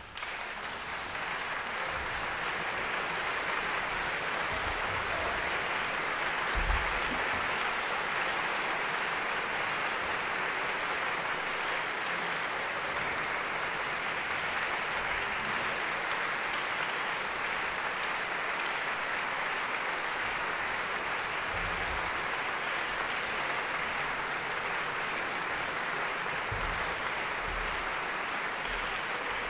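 Audience applauding, starting suddenly out of silence and going on steadily, with a few low thumps.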